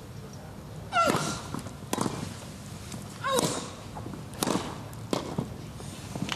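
Tennis rally: rackets strike the ball about five times, sharp pops roughly a second apart. About a second in and again past three seconds, a player lets out a short grunt with her shot, falling in pitch.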